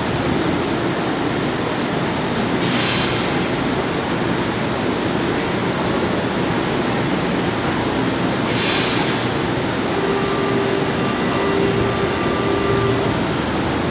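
São Paulo Metro Line 1 train running in an underground station: a steady dense rumble, with two short hissing bursts about six seconds apart and a steady whine for a few seconds near the end.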